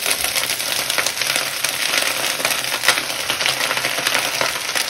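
Hot olive oil in a frying pan sizzling and crackling with many quick spits as handfuls of rinsed, still-wet broccoli rabe are dropped in; the water on the greens hitting the hot oil makes it spatter.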